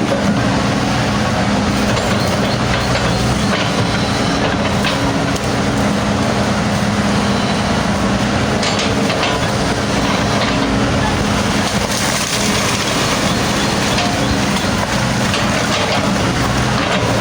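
Hydraulic excavator's diesel engine running at a steady pitch, with a few short sharp knocks through it.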